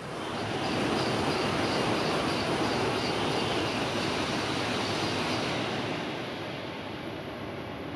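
A Tohoku Shinkansen train passing through the station at high speed on the through track: a loud, steady rushing noise that starts just as the clip begins and eases off somewhat over the last few seconds.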